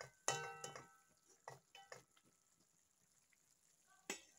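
Wooden spatula stirring chicken liver adobo in a nonstick pan, knocking against the pan a few times. The loudest knock, about a third of a second in, rings briefly.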